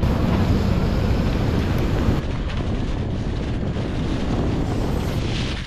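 Wind buffeting the microphone: a steady, loud, low rumble. It drops briefly about two seconds in.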